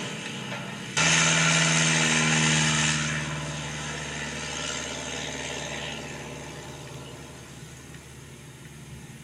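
Single-engine piston propeller plane, a high-wing Cessna, droning as it rolls along the runway. The engine comes in suddenly and loud about a second in, then fades steadily as the plane moves away.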